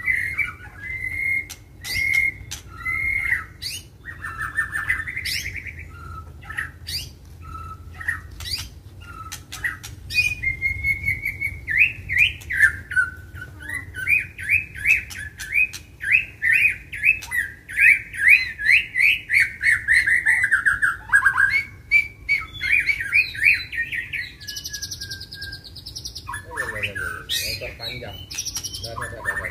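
White-rumped shamas (murai batu) singing a loud, varied song of chirps and whistles mixed with sharp clicks. About halfway through, a long run of rapid repeated notes lasts some ten seconds. This is the agitated, competitive singing that keepers call 'gacor' and 'fighter'.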